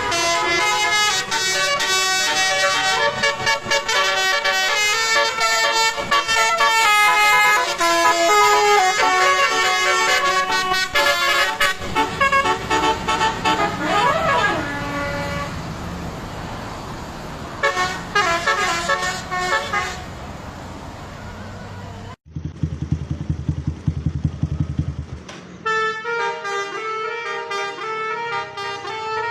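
Indonesian bus 'basuri' telolet horns, a set of multi-tone air horns, playing a quick tune of shifting notes, with bus engine noise beneath. After about twenty seconds the sound cuts off abruptly, a low buzzing drone follows for a few seconds, and then the horn tune starts again near the end.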